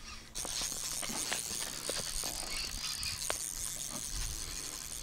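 Spinning reel being cranked on a lure retrieve, starting abruptly about a third of a second in: a steady whirr with scattered clicks and rattles.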